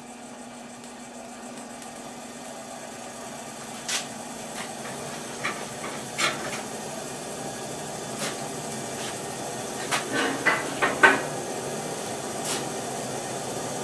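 Coal forge fire with the electric blower forcing air through the firepot: a steady air-and-flame rush that slowly grows louder. A few sharp pops and clicks break through it, with a cluster about ten to eleven seconds in.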